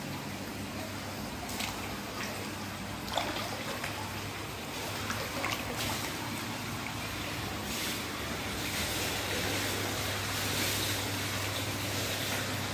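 Water sound: a steady, even rush with a faint low hum underneath and a few brief clicks.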